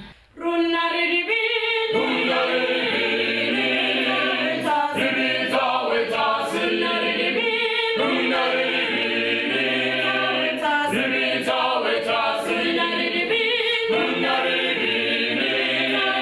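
Small mixed choir singing a cappella in parts, with bass, tenor and soprano voices together. The singing starts about half a second in.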